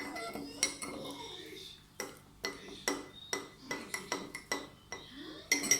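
Metal cutlery clinking against crockery: a run of sharp, ringing clinks, two or three a second, starting about two seconds in.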